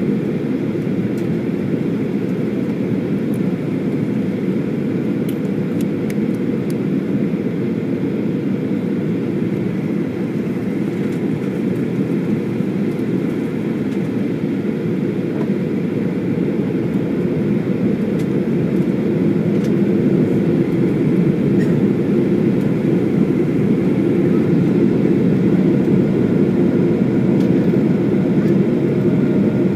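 Airliner cabin noise heard from a window seat: a steady low rumble of engines and airflow during the descent. It grows a little louder about two-thirds of the way through.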